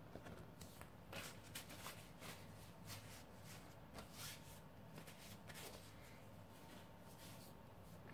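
Faint rustling of a thin, tissue-like sheet being handled and unfolded, in a string of soft rustles over the first six seconds that then die away.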